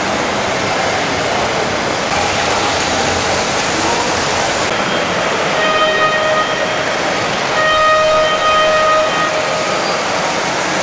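Hornby tinplate O gauge model trains running on three-rail tinplate track, a steady running noise. Twice, past the middle, a steady pitched tone like a horn or whistle sounds for about a second.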